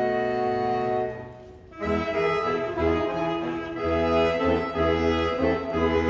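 Saxophone quartet of soprano, alto, tenor and baritone saxophones playing live: a held chord breaks off about a second in, and after a short pause the four come back in with short, rhythmic chords over pulsing low baritone notes.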